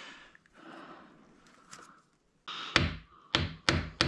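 Two-jaw gear puller being worked to draw the crankshaft sprocket off an FA20DIT engine block, making a run of sharp knocks, about three a second, that starts a little past halfway, after faint handling noise.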